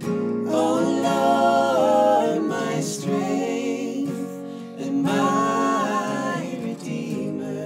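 Worship song: a voice singing two phrases over acoustic guitar accompaniment.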